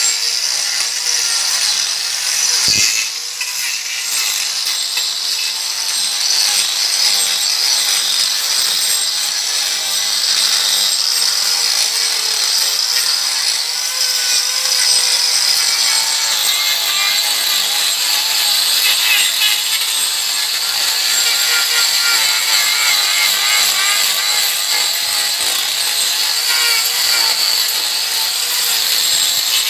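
Corded angle grinder cutting and grinding into a rough block: a continuous high-pitched grinding hiss that wavers as the disc bites in. It eases off briefly about three seconds in.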